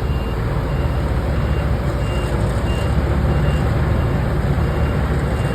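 Excavator's diesel engine running with a steady low rumble while its travel alarm sounds short high beeps, about three every two seconds.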